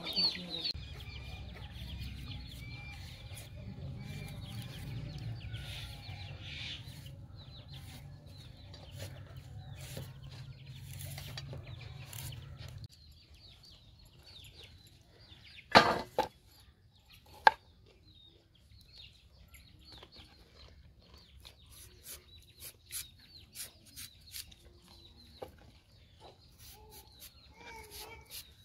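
Hens clucking in the background. A low steady rumble for the first half stops abruptly, followed by two sharp loud knocks and then light, irregular tapping.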